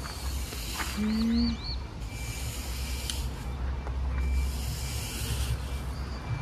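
Outdoor ambience: a steady low rumble with a high hiss that swells and fades. About a second in there is a brief pitched tone and a quick run of three high chirps.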